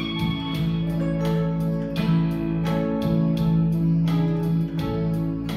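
Instrumental intro of a slow ballad: a hollow-body electric guitar picks a melody over sustained keyboard chords and bass, with a steady beat ticking about four times a second.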